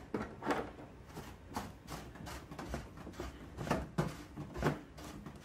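Plastic fuel tank cap on an Anbull diesel air heater being twisted by hand, giving a string of irregular clicks and scrapes. The cap keeps turning without locking.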